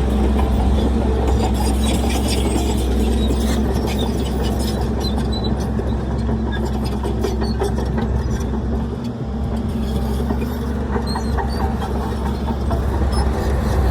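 Heavy diesel earthmoving machinery running steadily, with scattered clanks and squeaks of metal on top and a brief dip in the engine sound about nine seconds in.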